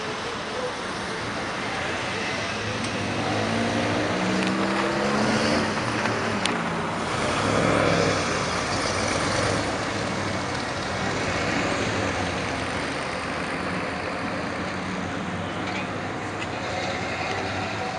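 Classic cars driving past at low speed, one after another, over steady traffic noise. From about three seconds in, one engine rises in pitch as it accelerates, and the loudest pass comes about eight seconds in.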